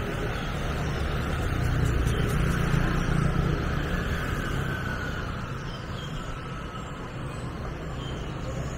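Street ambience: steady motor-vehicle traffic noise, swelling a little about two to four seconds in as vehicles pass.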